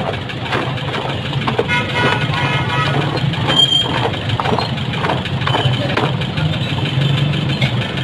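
Busy roadside street noise: vehicle engines running in the background with scattered clatter and knocks, and a short pitched tone, like a horn or a voice, about two seconds in.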